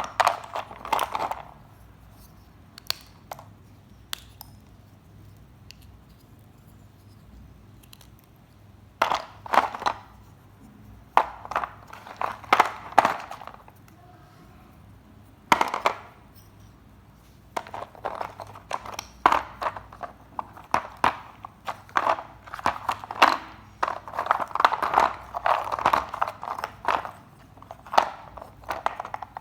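Dry multani mitti (fuller's earth clay) crunching and crumbling in irregular bursts of crisp crackles, sparse at first and nearly continuous for the last third.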